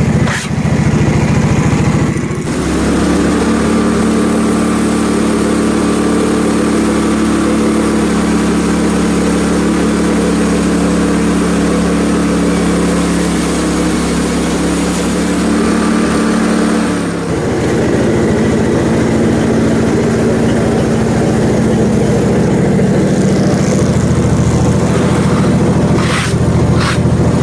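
Portable bandsaw sawmill's gas engine running steadily under load while the band blade cuts through an ash burl. The engine note shifts about two and a half seconds in and again about two-thirds of the way through.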